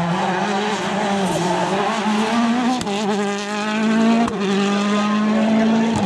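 Citroën DS3 WRC rally car's turbocharged four-cylinder engine accelerating hard. Its revs climb and drop sharply twice, at about three and four and a half seconds in, with a crack at each upshift, then hold a steady high note as the car pulls away.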